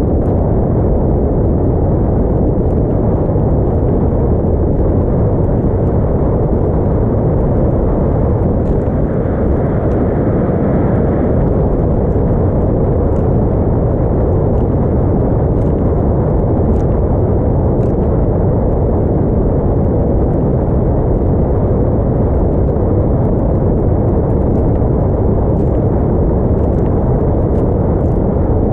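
Steady, loud rumble of a small motorboat under way, with heavy wind noise on the microphone.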